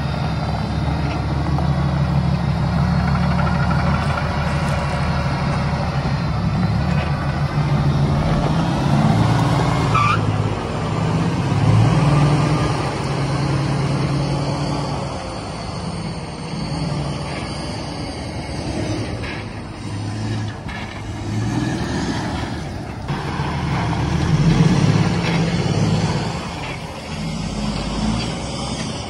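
Semi truck's diesel engine running under way while hauling a heavy load, a low drone that swells and eases over and over.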